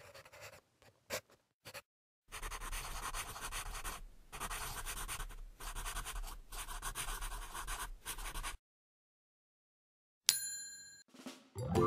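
Pencil scratching on paper as words are written, in four stretches with short breaks, followed about ten seconds in by a bright ringing ding.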